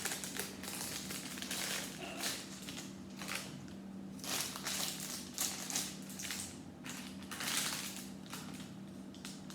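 Plastic Lego parts bags crinkling and rustling as they are handled and searched through, in several irregular bursts.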